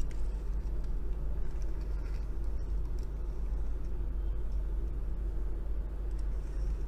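Steady low background hum, with the faint rolling of a die-cast metal toy car's small plastic wheels as it is pushed back and forth on a tabletop.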